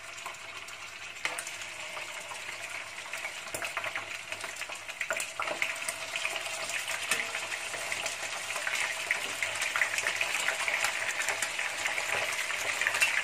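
Raw chicken wing pieces sizzling and crackling in hot cooking oil in a nonstick frying pan as they go in one by one; the sizzle builds as more pieces are added, with scattered sharp clicks and pops.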